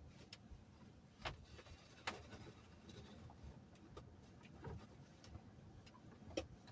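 Near silence, with a few faint, scattered clicks and taps of small objects being handled.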